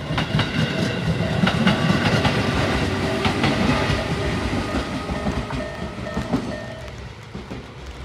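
A Tobu Koizumi Line train passes close by, its wheels clattering over the rail joints with a loud rumble that fades in the second half. Through it the level crossing's electronic bell keeps ringing its Isesaki-type tone, then stops about seven seconds in as the train clears the crossing.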